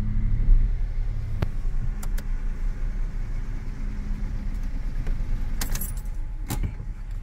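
Daihatsu car's engine running with a steady low hum, heard inside the cabin, with a few short clicks and rustles scattered through.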